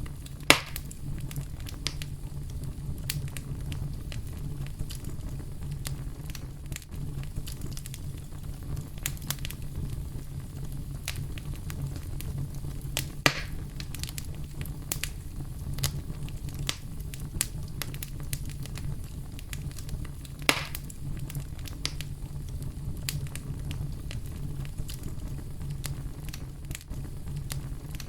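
Campfire crackling with scattered small snaps and three louder sharp pops: just after the start, about halfway, and about three quarters through. A steady low rumble of brown noise runs underneath.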